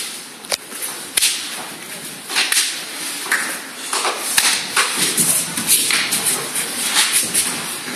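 Sparring on a gym mat: bare feet scuffing and slapping the mat, with body contact. Two sharp slaps come about half a second and a second in, then a dense run of scuffs and thuds as the two fighters clinch and grapple.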